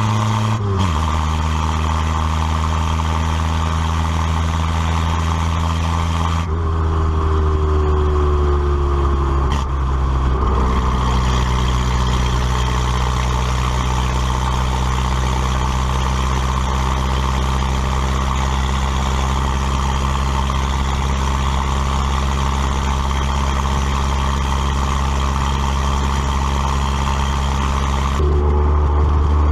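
Carbureted Toyota Celica engine running as the car is driven on the road, holding a steady pitch that drops about a second in and again around ten seconds in, then rises near the end. The engine still has a slight misfire.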